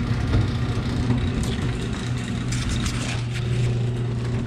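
Electric garage door opener running: a steady motor hum with a few light rattles as the door moves.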